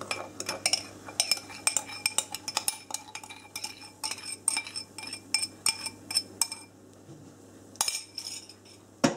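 A wooden spoon stirring thick cookie dough in a stainless steel mixing bowl: quick knocks and scrapes, about three or four a second, each setting the metal bowl ringing briefly. The strokes stop about seven seconds in, and a few more knocks come near the end.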